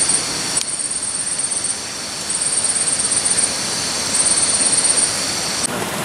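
Night jungle insects chirping: high, rapid pulse trains repeating about every second over a steady hiss, cutting off suddenly near the end.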